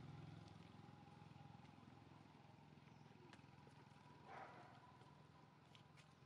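Near silence: faint outdoor ambience with a steady low hum, a short faint sound about four seconds in and a few soft clicks near the end.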